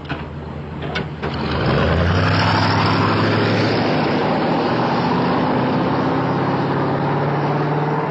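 Car engine running low, with two short clicks in the first second, then speeding up about a second and a half in and holding a loud, steady run.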